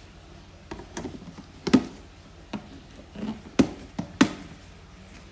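Clear plastic snake tub and its lid being handled: a handful of sharp plastic taps and knocks, the loudest about two seconds in.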